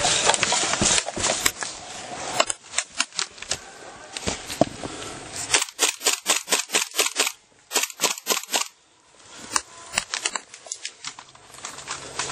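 Airsoft guns firing: scattered single shots, with two quick strings of rapid shots of about seven a second in the middle.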